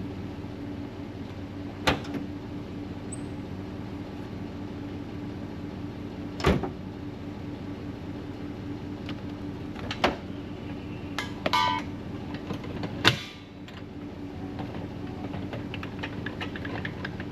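Truck engine idling steadily with its air conditioning running. A handful of short knocks and clunks are heard along with a brief squeak, and the loudest clunk comes near the end, after which the hum is a little quieter.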